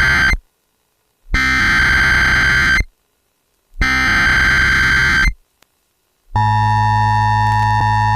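Emergency Alert System SAME header: bursts of shrill, warbling digital data tones. The first burst ends just after the start, and the header then repeats twice more, each burst about a second and a half long with a second of silence between. About six seconds in, the steady two-tone EAS attention signal begins. Together they open a National Weather Service severe thunderstorm warning broadcast.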